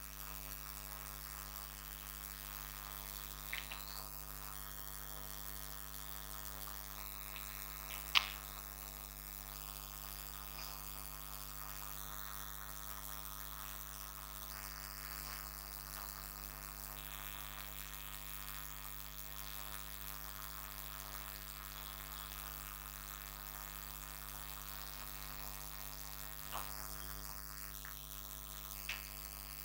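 Steady electrical mains hum with a few faint, brief clicks, the sharpest about eight seconds in.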